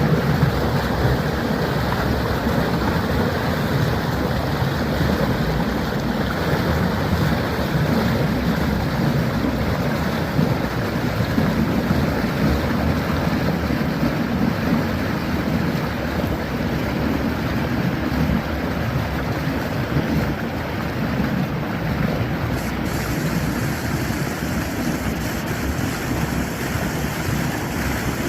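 Flash-flood water rushing down a wadi channel: a steady, unbroken rush of churning water.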